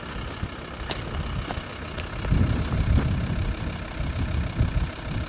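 Steady low rumble of an idling vehicle engine, swelling a little about halfway through, with a few faint ticks.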